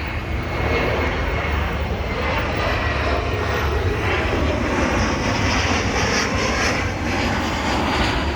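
An engine running steadily, its pitch drifting slowly up and down.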